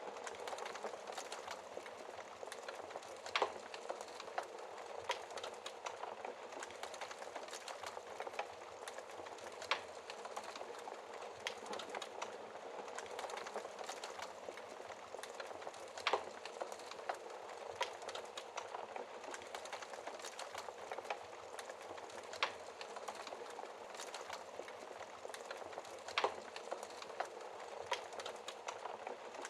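Fire burning behind a glass shield: a steady hiss with sharp crackling pops every few seconds, a handful of them standing out louder than the rest.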